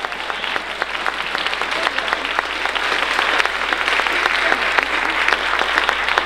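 Concert-hall audience applauding, a dense patter of many hands that grows louder over the first few seconds.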